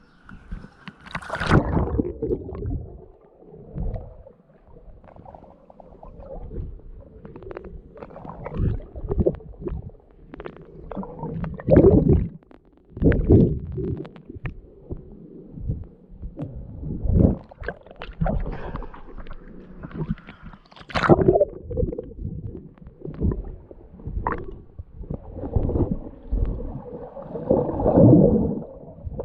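Muffled water gurgling and splashing close against a camera at or under the water's surface, in irregular surges every second or two.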